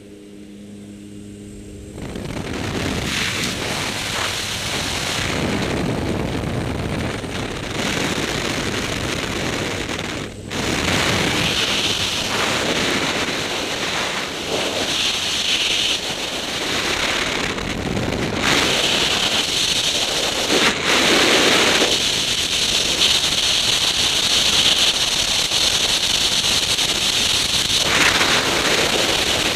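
Jump plane's engine hum through the open door for about two seconds. Then a loud, steady rush of freefall wind over the camera's microphone.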